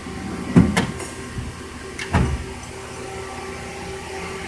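Drawer of a Craftsman steel rolling toolbox being pushed shut: two thuds about a second and a half apart, over a steady background hum.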